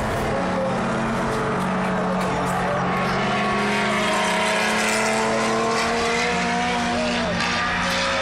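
A group of historic race cars running past on the circuit, several engine notes overlapping, some rising and some falling in pitch as the cars go by.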